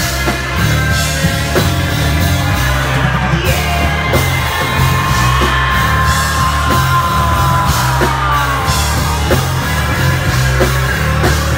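Rock band playing a song: drums and bass with a sung, partly shouted vocal that holds a long, slowly falling note in the middle.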